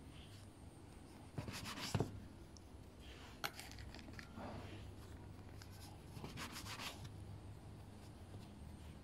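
Plastic dough scraper cutting through a roll of dough and scraping on a floured baking tray: faint rubbing scrapes with a few sharp knocks against the tray, the loudest about two seconds in.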